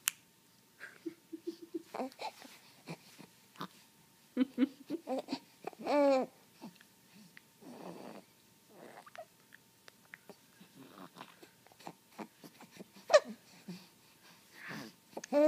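Young baby babbling and cooing in short scattered vocal sounds, with a longer drawn-out coo about six seconds in, a breathy sound around eight seconds and a brief high squeal near thirteen seconds.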